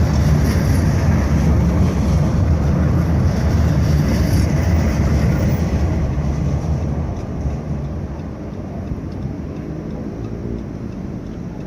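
Loud, steady rumble of a street tram running close by, easing off after about seven seconds.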